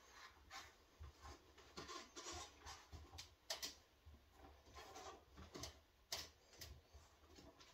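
Near silence with faint, scattered clicks and rubbing as hands work a bolt handle held in a bar clamp, with a sharper click about a third of the way in and another near the end.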